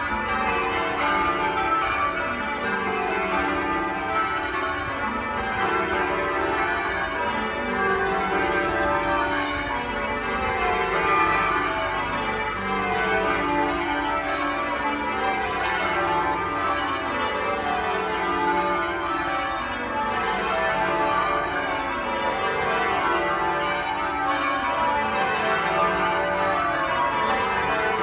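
A ring of twelve church bells being rung in sequence, each row of strokes stepping down in pitch from the highest bell to the lowest and starting again.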